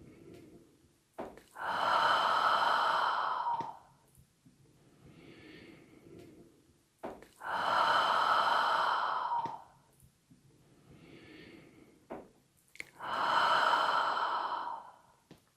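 Long, breathy exhalations of the qigong heart healing sound: three drawn-out exhales of about two and a half seconds each. Each starts with a short click, and quieter in-breaths fall between them.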